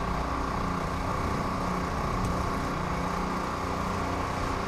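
Portable generator engine running at a steady, unchanging speed, giving a constant droning hum.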